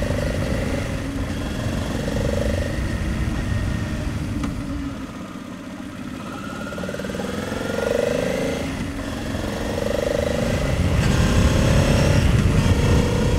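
Onboard sound of a 2009 Honda Transalp 700's V-twin engine being ridden through curves, its pitch rising and falling with the throttle over a low wind rumble. It eases off and gets quieter about five seconds in, then pulls harder and louder again near the end.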